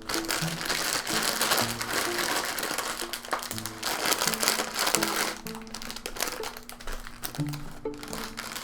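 Chip bag crinkling and rustling steadily as it is handled and rolled up, over light plucked-string background music.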